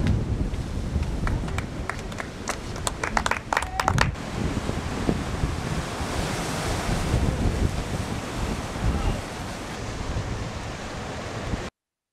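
Ocean waves breaking on a rocky shore, with wind buffeting the microphone. A quick run of sharp clicks about one to four seconds in, and the sound cuts off suddenly near the end.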